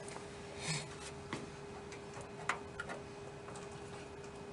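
Faint, scattered small clicks and light taps of a screw being handled and set against the PCI card's metal bracket in a computer case, over a faint steady hum.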